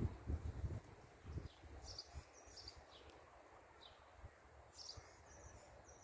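Faint wind, gusting on the microphone in the first second and then low and even, with a small bird calling a few times in short high chirps and quick trills.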